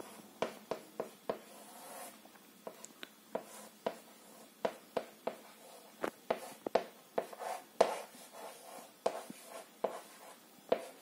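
Chalk writing on a chalkboard: an irregular string of sharp taps and short scratches as each figure and stroke is written.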